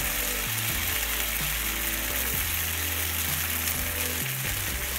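Fried onions and tomato sauce sizzling in a frying pan as water is poured in, with a steady hiss. Background music with low held notes plays under it.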